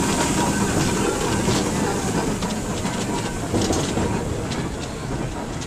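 Steam traction engines running at walking pace close by: a steady heavy rumble with irregular metallic clanks and ticks.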